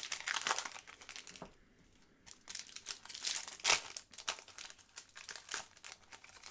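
Crinkling and crackling of a trading card pack wrapper and cards being handled, in irregular bursts with a short lull about a second and a half in.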